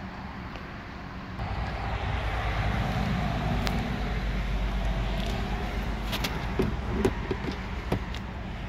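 A low vehicle rumble swells in about a second and a half in and eases off after a few seconds. Several light clicks and knocks follow near the end.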